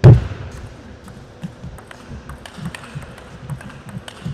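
Table tennis rally: the plastic ball clicking sharply off the bats and the table about twice a second, with soft thuds of the players' feet on the court. It opens with one loud low thump, the loudest sound.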